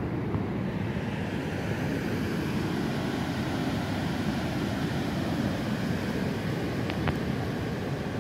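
Steady low rumbling and buffeting of wind on the microphone, with two faint ticks about seven seconds in.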